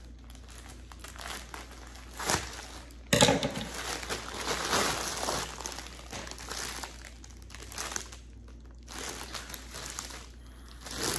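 Plastic packaging crinkling and rustling as it is handled and opened, with a sharp, loud crackle about three seconds in.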